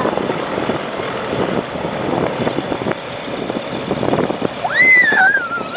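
A gyroplane's engine running and pusher propeller turning as the aircraft taxis with its rotor spinning. Near the end, a high whistling tone rises sharply, then falls and wavers.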